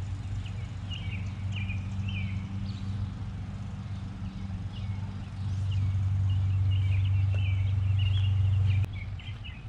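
Small birds chirping over and over over a steady low motor-like hum. The hum gets louder about halfway through and cuts off suddenly shortly before the end.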